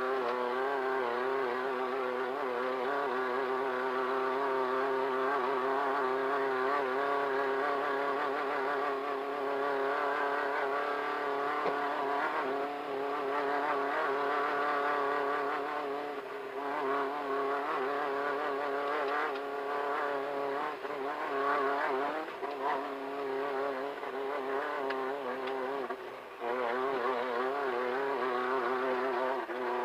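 Off-road race car's engine running hard at fairly steady revs, its pitch wavering a little up and down, with a brief drop in level about 26 seconds in.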